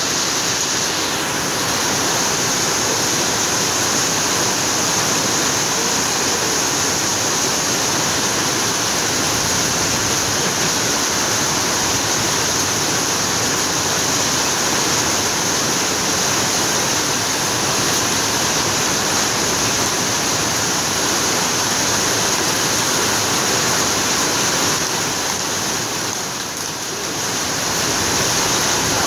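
Steady loud rushing of water, with a brighter high hiss over it; the level dips briefly near the end.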